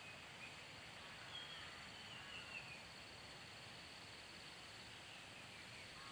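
Quiet woodland ambience, close to silence: a faint steady hiss with a thin, steady high-pitched tone, and a few faint bird chirps between about one and three seconds in.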